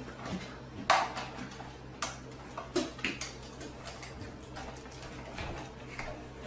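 Scattered sharp clicks and taps from dogs coming through a pet door and walking across a wooden floor, over a faint steady hum.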